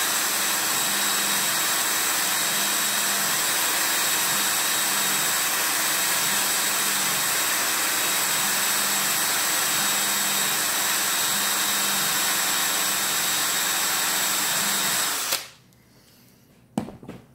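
Cordless drill spinning a cloth polishing wheel charged with white compound against a bare aluminum seat post, running steadily at full speed. It cuts off suddenly shortly before the end, followed by a single sharp clack.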